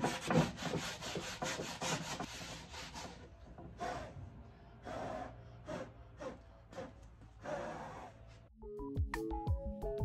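Sanding block rubbed by hand along a wooden tabletop edge: quick back-and-forth strokes for about three seconds, then a few slower, separate strokes. Music with drums comes in near the end.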